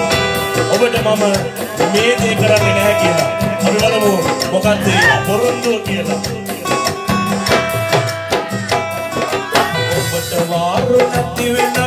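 Music: a dholki, a two-headed hand drum, played in rapid strokes along with a melodic song.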